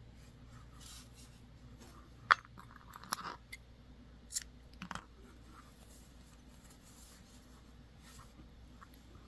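Small scissors snipping the yarn tail of a knitted wool slipper: a few sharp clicks of the blades and handling, the loudest about two seconds in, with soft rustling of the wool between them.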